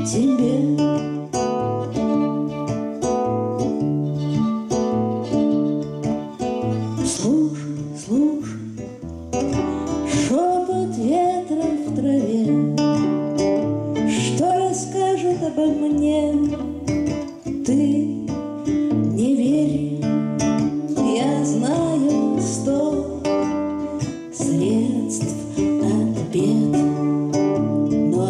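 Acoustic guitar strummed and a violin playing a blues song, with a woman singing.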